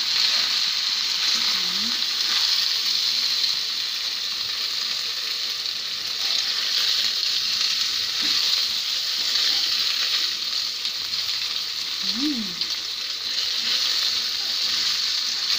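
Pan-fried tofu and minced pork sizzling in a hot pan with a steady hiss as a spatula stirs and turns them.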